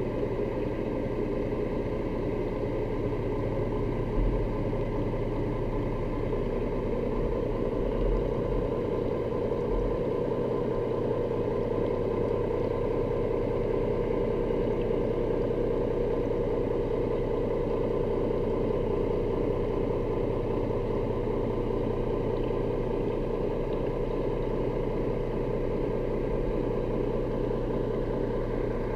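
Boat engine running steadily, heard underwater: a continuous hum with several steady tones. A couple of low bumps come about four and eight seconds in.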